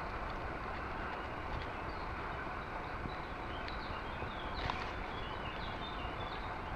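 Steady noise of river water moving and wind on the microphone as a released wels catfish swims away, with a few faint high chirps in the middle.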